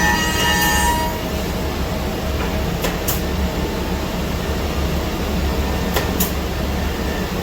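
Biesse Rover A Smart 5-axis CNC router running with a steady low hum while machining a curved wooden part. A whining cutting tone in the first second stops. Two pairs of short, sharp hissing bursts come about three and six seconds in.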